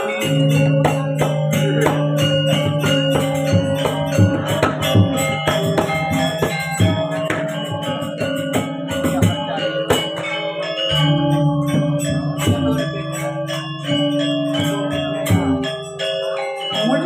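Balinese gamelan playing: bronze metallophones and gongs struck in a fast, dense rhythm over long-ringing low tones, with a deep low note coming in about eleven seconds in.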